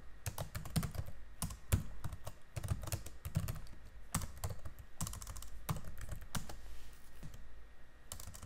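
Computer keyboard typing: a run of irregular keystroke clicks, with a steady low hum underneath.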